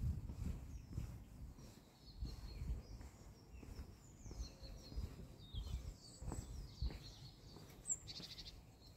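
Footsteps of someone walking on a paved path, about two steps a second, with small songbirds chirping and whistling; a short rapid trill near the end.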